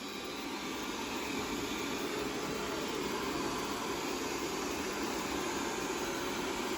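Xiaomi Mi Robot Vacuum running, its suction fan giving a steady whirring hiss.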